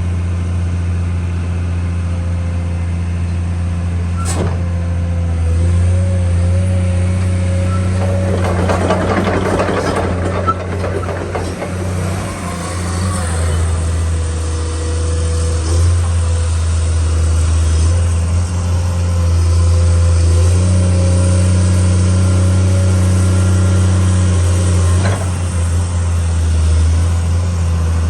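Komatsu PC210-10M0 excavator's diesel engine running with a steady low drone and a faint whine, its load rising and falling several times. A stretch of rattling noise comes in about eight seconds in, and there are sharp clicks near four seconds and near the end.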